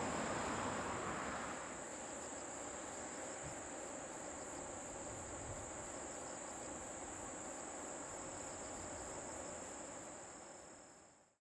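Insects singing in the grass: a steady high trill with a faster pulsing chirp over it, about three a second. A distant rushing jet noise fades away in the first two seconds, and the whole sound fades out near the end.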